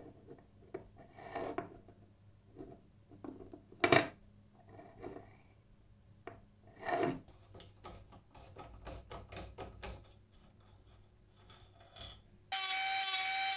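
Small rusty metal clamp handled against a wooden bench and a steel block: soft scrapes and light metal clicks, one sharp clack about four seconds in, and a quick run of ticks, about four or five a second, as its screw is turned by hand. Music comes in near the end.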